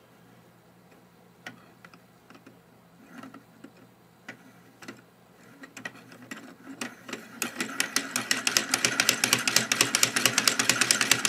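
Hand-cranked 3D-printed plastic pin-and-slider mechanism clicking as it turns: a few scattered clicks at first, then from about two-thirds of the way in a fast, loud, steady clatter of plastic parts as the crank is spun quickly.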